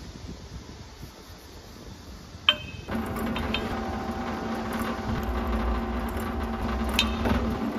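Quiet at first, then a single sharp metallic clink about two and a half seconds in. The drill press motor then starts and runs with a steady hum while a small twist drill bores into the rim of an aluminium tube.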